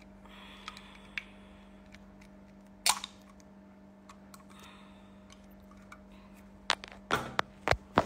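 Phone handling noise: scattered clicks and knocks with a couple of brief rubbing sounds as the phone is moved, over a steady low electrical hum. The loudest knock comes about three seconds in, and a quick cluster of knocks comes near the end.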